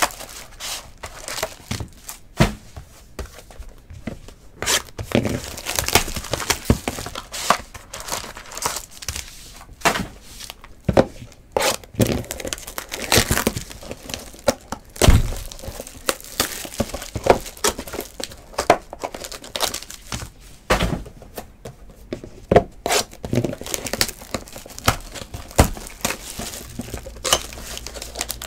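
Plastic shrink wrap and foil card packs crinkling and tearing as trading card boxes are unwrapped by hand, in irregular rustles and snaps. A few dull thunks come from boxes or card stacks being set down on the table.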